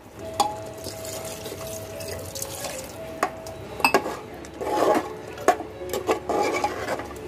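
Water poured into a pressure cooker of thick curry, then a steel ladle stirring it, splashing and knocking against the pot's side a few times.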